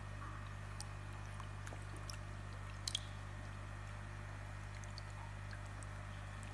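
Small wet splashes and drips of water as a hand lifts and holds a goldfish in a shallow tub, over a steady low hum; two sharper clicks come close together about three seconds in.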